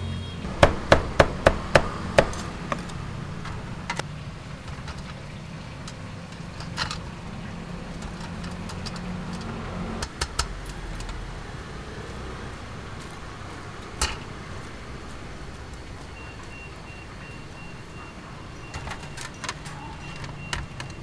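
Metal tongs clacking against a stainless wire strainer basket while braised duck pieces and tofu are turned and lifted. A fast run of about six sharp clacks starts about half a second in, then single clinks every few seconds and a small cluster near the end, over a low steady hum that stops about halfway through.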